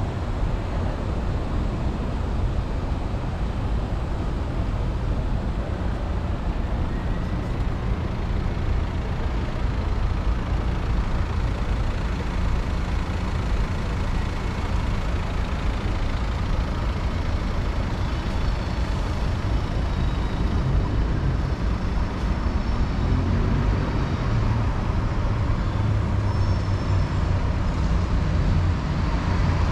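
City street traffic: cars and buses running and passing in a steady rumble, heavier in the last few seconds.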